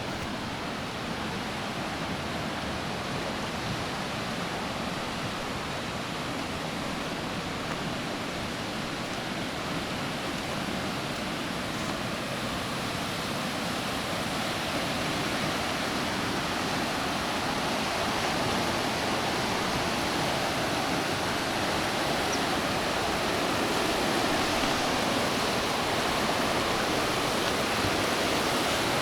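Fast mountain river rushing and churning, a steady roar of water that grows a little louder in the second half.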